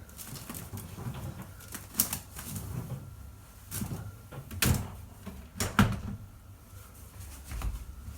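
Handling noise: an irregular series of knocks and clicks over low rumbling, the sharpest about two seconds in, near four and a half seconds and near six seconds.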